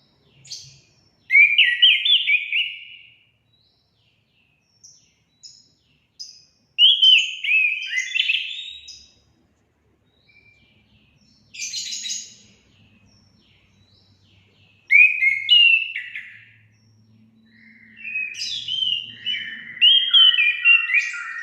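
Orange-headed thrush singing loud phrases of quick, varied whistles and warbles, about five phrases separated by pauses of a second or more, with the last phrase running longer.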